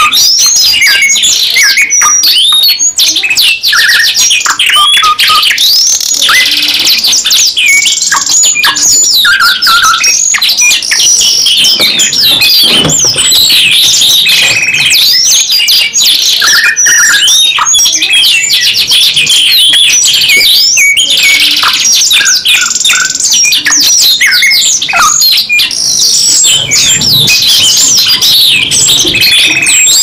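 Two caged songbirds, a blackthroat and a white bird billed as sikatan londo, singing at once in a loud, unbroken stream. Their song is made of fast trills, quick rising and falling whistles and buzzy runs, layered over each other.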